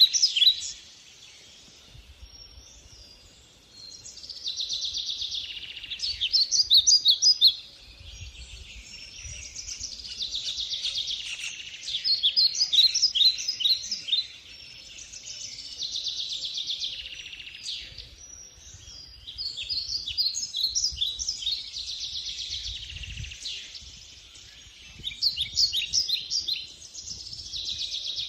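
Birdsong: a small songbird singing phrases of rapid chirps and trills, each lasting a few seconds, with short pauses between them.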